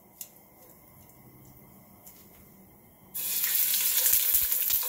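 Raw chicken laid into hot oil in a wok, bursting into a loud sizzle about three seconds in; before that only a few faint clicks.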